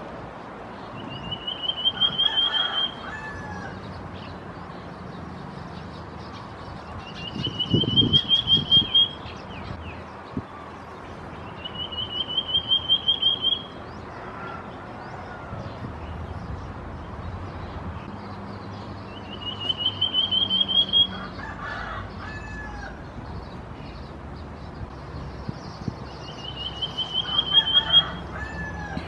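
Common Iora (Aegithina tiphia) calling: five trills of rapid notes, each about two seconds long, rising slightly in pitch and growing louder, repeated every few seconds.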